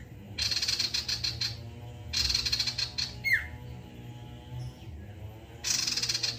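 Male common iora (cipoh, 'sirtu') singing. Three bursts of fast, chattering high notes, each about a second long, with a sharp falling whistle about three seconds in.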